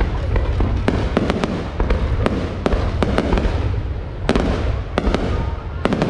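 Many sharp bangs and pops in quick, irregular succession, several a second, over a steady low rumble.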